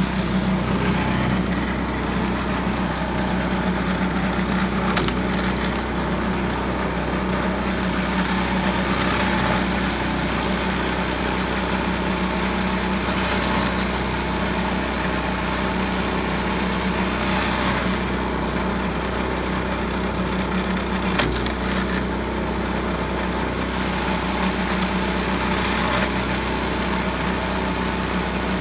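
The small gasoline engine of a pitman arm wood splitter running steadily, with a sharp knock about five seconds in and another near twenty-one seconds.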